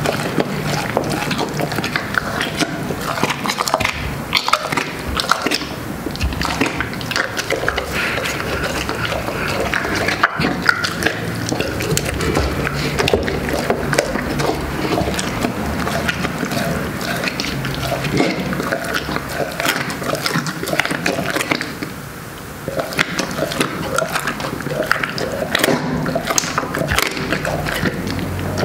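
A large mastiff chewing and crunching roast chicken and its bones, in a dense run of cracks and crackles, with a brief lull about three-quarters through.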